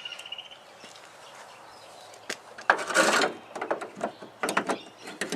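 Old sliding-door roller hinge of a Toyota Previa being worked out of its mount: scattered metal clicks and knocks, with a short scraping rub about three seconds in.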